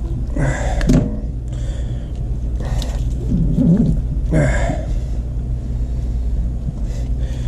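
Burbot skin being pulled off the fish with pliers: short rasping, peeling swishes, one about a second in and another near the middle, over a steady low rumble.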